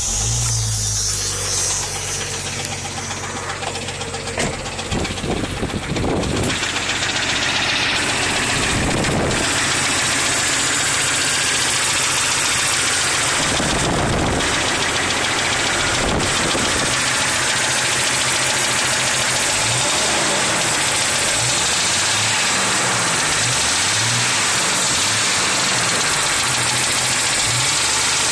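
1996 Jeep Cherokee XJ's 4.0L inline-six engine running with a knock, which the owner says is loudest near the rear driver's side. The knock got loud after Valve Medic and Lucas oil stabilizer were added; two mechanics say it is not an exhaust leak.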